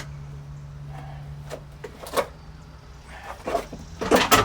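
Heavy metal truck clutch parts being handled and set into place: a few clunks and scrapes, the loudest just before the end, over a steady low hum.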